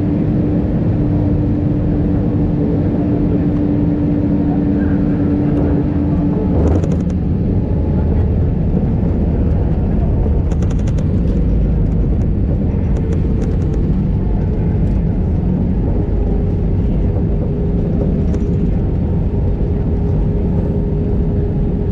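Airbus A319 landing, heard from inside the cabin: a steady loud rumble of engines, airflow and wheels, with a thump about seven seconds in as the main wheels touch down. A steady hum stops at that moment, and the rollout continues with the spoilers up and scattered rattling clicks from the cabin.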